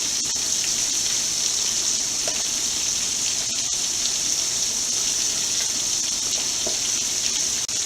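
Steady sizzling hiss of food frying in hot fat, even and unbroken, with a couple of faint pops.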